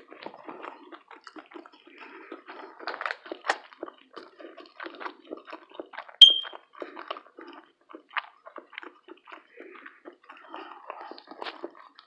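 A person chewing and smacking through a mouthful of breakfast food, with many small irregular wet clicks. About six seconds in there is one sharp ringing clink, the loudest sound.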